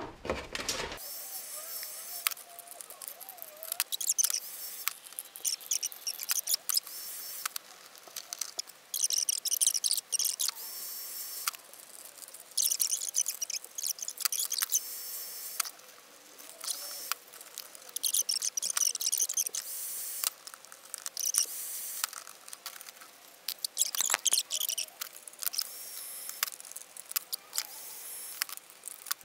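Hot-air gun blowing in repeated bursts of hiss a second or two long, between sharp clicks of snips cutting slots in warm PVC foam board. The sound is thin and high-pitched throughout.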